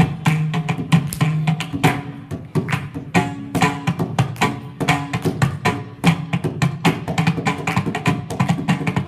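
Mridangam played solo in a fast, dense stream of strokes, with ringing pitched notes among sharp slaps, in tisra jati triputa tala, 2 kalai.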